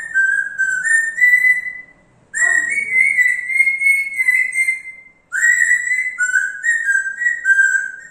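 African grey parrot whistling a tune: a string of stepping whistled notes in three phrases, with short pauses about two and five seconds in.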